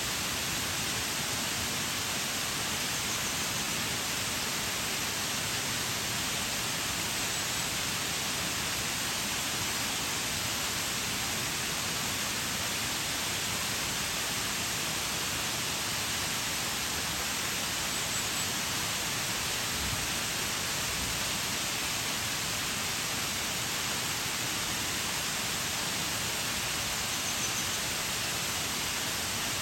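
Shiraito Waterfall's water falling and splashing in a steady, unbroken rush of hiss, strongest in the higher range.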